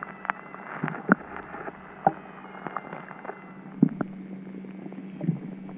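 Underwater sound from a submerged camera: irregular sharp clicks and knocks over a steady low hum.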